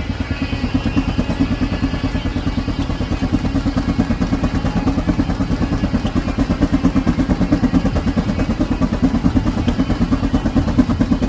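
Steam engine running steadily with a fast, even beat of several strokes a second, low-pitched.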